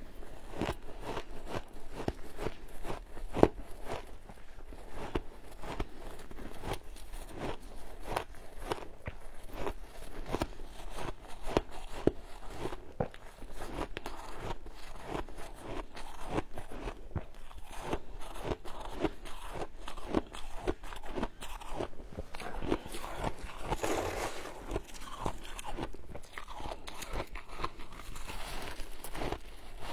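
A person chewing and biting mouthfuls of frozen shaved ice: a dense run of crisp crunches, several a second, without a break.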